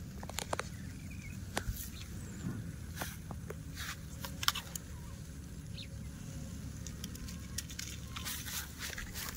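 Table knife stirring and scraping egg in a foil tray over a small tin-can fire: scattered sharp clicks and crinkles, the loudest about four and a half seconds in, over a steady low rumble.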